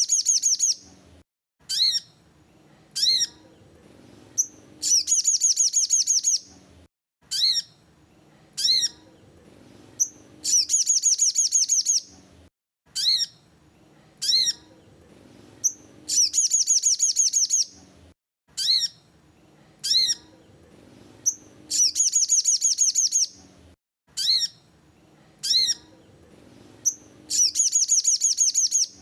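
A sogon bird singing: a few short, sharp high notes that slide downward, then a fast trill of rapid repeated notes lasting about a second and a half. The phrase repeats every five to six seconds, as in a looped lure recording meant to get other sogon birds to sing.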